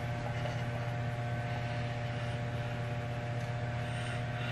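Steady electrical hum: a low drone with a fainter, higher whine above it.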